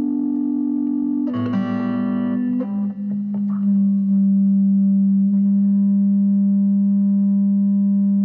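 Music: an electric guitar through effects, playing long sustained notes. A new chord sounds about a second in, a few short notes follow, and then one low note is held and rings on steadily.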